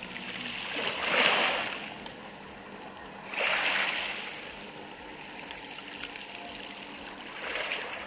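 Small sea waves washing in over a pebble beach, a hiss of water over the stones that swells three times: about a second in, at about three and a half seconds, and near the end.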